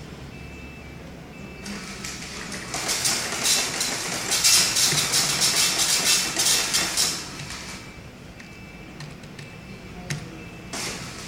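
Dot-matrix printer printing on continuous-form paper: a rapid, loud rattling of the print head for about six seconds, starting about two seconds in and stopping suddenly. Near the end, a brief rustle as the printed sheet is handled.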